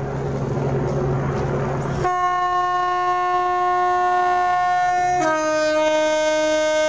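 British Rail Class 92 electric locomotive arriving at walking pace with a low steady hum and rumble, then sounding its horn from about two seconds in: a long held note that drops to a lower note about three seconds later.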